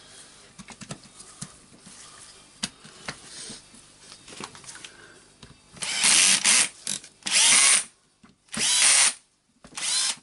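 Cordless drill-driver running in short bursts, driving in the screws of a drill's plastic housing: four runs of about a second each, starting about six seconds in. Before them, light clicks and knocks of parts being handled.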